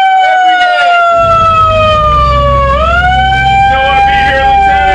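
A wailing siren whose pitch rises quickly and then slides slowly down, repeating about every three seconds. A low, steady rumble like an engine joins about a second in.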